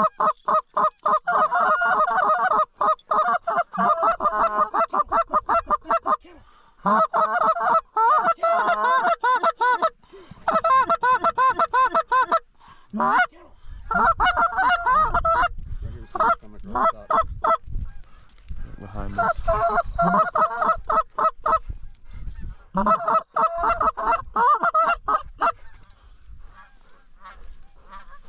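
Canada goose calls blown hard in rapid bouts of honks and clucks, several notes a second, to bring in an approaching flock of geese.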